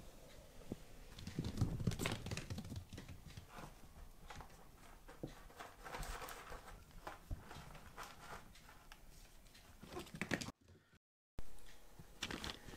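Kittens playing: paws pattering and scratching, with rustling and small taps and knocks. Around the middle there is a scratchy rustle that fits a kitten digging in cat litter. The sound cuts to silence for a moment near the end.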